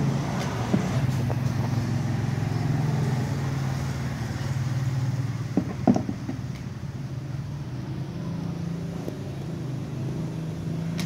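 A motor vehicle engine running steadily, a low hum, with a few short knocks about six seconds in.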